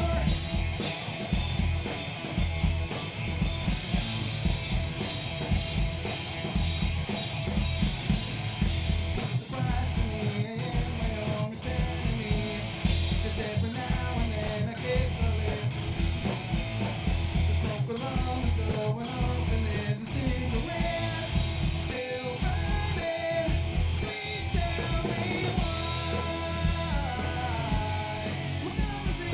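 Live rock band playing: drums, bass and electric guitars.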